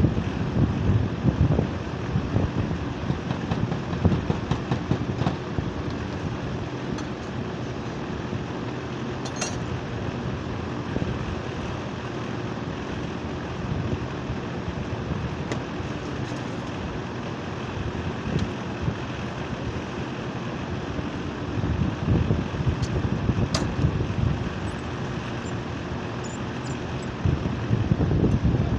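Outdoor unit of a split-type air conditioner running: a steady compressor hum under fan noise, with a couple of sharp clicks and wind buffeting the microphone in gusts.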